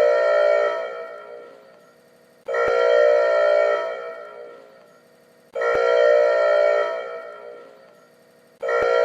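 Factory alarm sounding in repeated blasts of a multi-tone chord, one about every three seconds; each blast starts abruptly, holds for about a second, then fades away.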